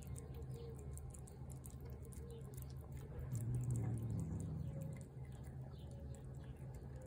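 Cat chewing wet cat food from a plate: a quick run of small, wet clicks. A low rumble swells briefly about three and a half seconds in.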